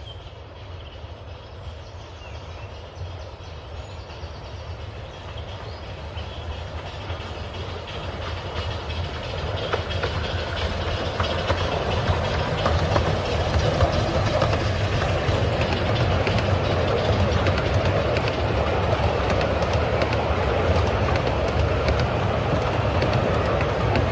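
A 10¼-inch-gauge miniature steam train approaches and runs past, its carriages rolling by on the track. It grows steadily louder over the first twelve seconds or so, then stays loud as the coaches pass close.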